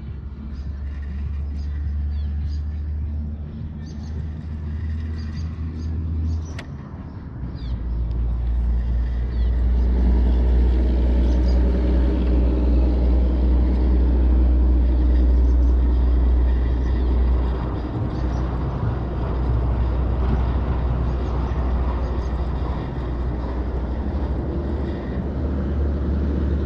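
Steady low rumble. It dips briefly, then grows louder about a third of the way in. Faint short chirps sound over it in the first several seconds.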